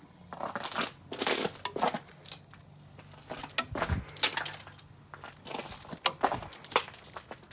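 Ice crunching and cracking in a series of irregular bursts, with several sharper cracks among them.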